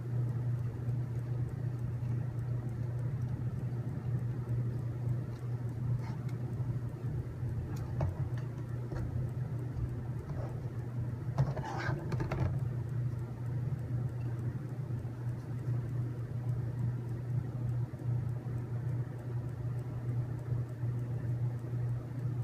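A steady low hum, with a few faint clicks and taps of small screws and plastic parts being handled during robot-kit assembly.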